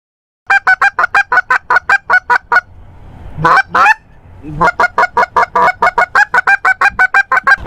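Goose honking: a fast, even run of short honks, about six a second, broken about three seconds in by two longer honks that slide upward, then another fast run.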